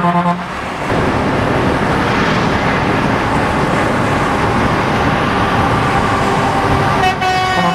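Truck horn sounding a steady chord of several tones, ending just after the start and starting again about seven seconds in, as an oncoming truck approaches. Between the blasts, steady wind and road noise rush in through the open cab window at highway speed.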